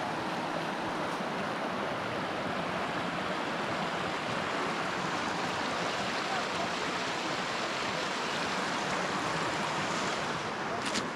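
Creek water rushing steadily over rocks and small cascades.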